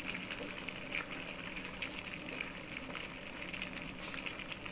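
Coconut-milk stew bubbling at a steady boil in a stainless steel pan: a continuous hiss with many small, fine crackles.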